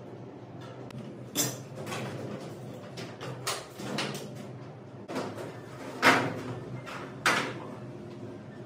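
Sliding glass doors of a file cabinet being moved and knocking in their tracks: a handful of sharp, irregular knocks, the loudest about six seconds in.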